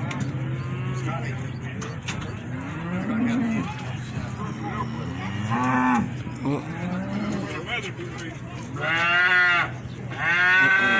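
Cattle mooing, several calls overlapping one another throughout, with the two loudest calls coming close together near the end.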